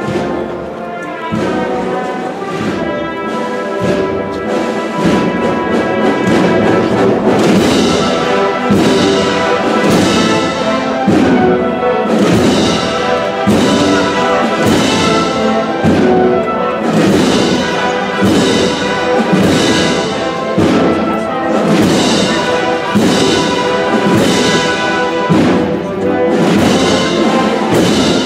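Brass band playing a Holy Week processional march, with a steady drum beat about once a second; the music grows louder about five seconds in.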